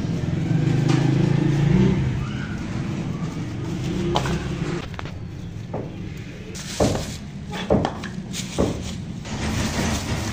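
Clear plastic bags rustling and crinkling as wooden brushes with coir bristles are handled and bagged, with a few sharp knocks as the brushes are set down. A low hum fills roughly the first half.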